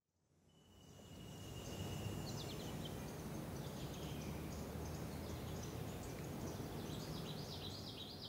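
Outdoor ambience fading in: small birds chirping and twittering over a steady low rumble, with a thin high steady tone in the first couple of seconds.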